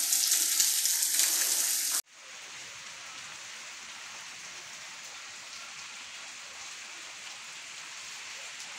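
Heavy rain hissing loud and close, cut off abruptly about two seconds in and replaced by a quieter, steady rain.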